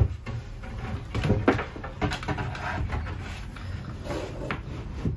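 A plywood panel being pushed and shuffled into place in a cabinet frame: a loud wooden knock at the start, then a run of irregular knocks, taps and scrapes of wood on wood.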